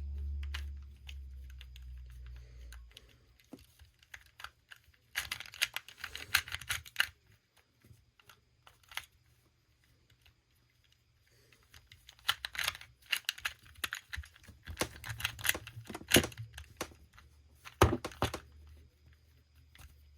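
A 2x2 Rubik's cube being turned by hand: its plastic layers clack in quick runs of clicks, with a pause of a few seconds midway. A low rumble is heard for the first few seconds.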